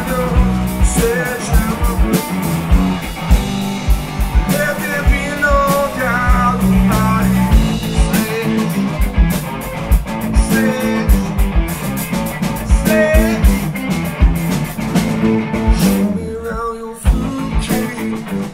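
Live rock band playing: electric guitar, a drum kit keeping a steady beat and a man singing. The band briefly drops out about sixteen seconds in, then comes back in.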